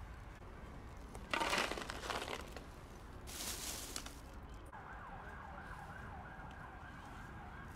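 Dry cat kibble scooped and poured, two short rattling rushes, the first the loudest. About halfway through a wavering siren sets in and keeps going.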